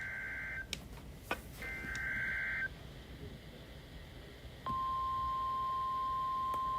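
NOAA Weather Radio receiving an EAS alert: two one-second bursts of the warbling SAME header data screech, a second apart, then, after a short pause, the steady 1050 Hz warning alarm tone begins about four and a half seconds in and holds. This is the start of a tornado warning broadcast.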